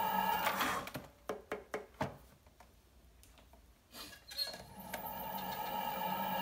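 Steady droning ambient background music cuts out about a second in. In the gap come a handful of light, sharp clicks and taps, then near quiet, before the music fades back in.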